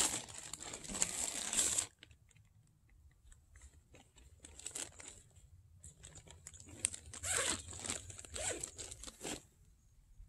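Crinkling and rustling of something being handled, in two stretches: the first two seconds, then again from about seven to nine seconds in, with faint crackles between.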